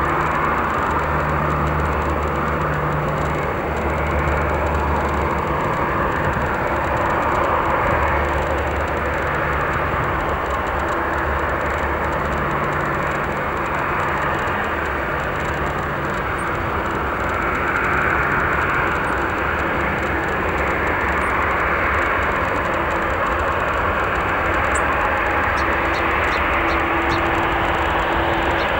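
Boeing 777-300ER airliner on final approach, its two GE90-115B jet engines making a steady, even jet noise that holds at one level as it descends toward touchdown.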